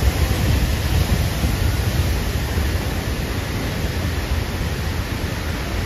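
Waterfall pouring into its pool, a steady rushing noise that is heavy in the low end.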